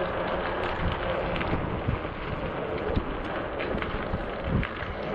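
Wind buffeting the microphone and road rumble from a 20-inch Ecotric e-bike rolling along pavement, a steady noisy rush with a few light clicks and rattles.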